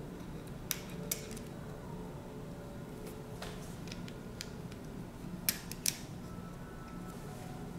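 Sharp little clicks of a plastic pry tool and spudger working the flex-cable connectors of an opened Google Pixel 4: two clicks a moment apart about a second in, and two more about five and a half seconds in, over a low steady hum.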